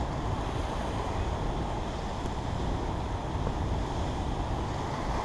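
Steady rush of turbulent white water pouring out of a dam spillway at high release, about 1000 cubic feet per second.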